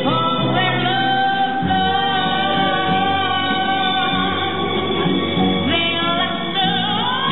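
Background music with a singer holding long notes, sliding up into a new note near the start and again near the end.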